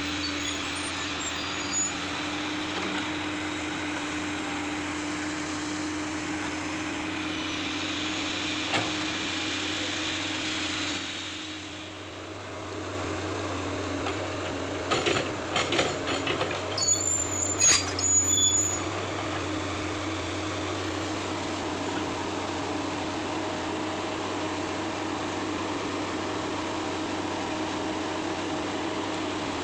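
Komatsu PC200 hydraulic excavator's diesel engine running steadily with a constant hum. It eases off briefly about twelve seconds in, then a quick run of metallic clanks and a short high squeal follows over a few seconds before the steady running resumes.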